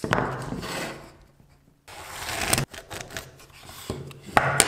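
Ballpoint pen scratching lines across a wooden block along a ruler: three scratchy strokes, with a few light clicks of the ruler and pen between them.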